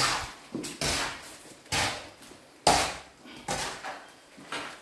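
Rubber boots stamping into a heap of damp clay and earth being trodden to mix it, about six heavy steps roughly a second apart.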